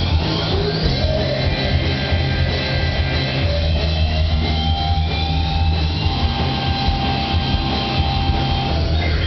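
A live rock band playing loudly, with electric guitar and a Pearl drum kit.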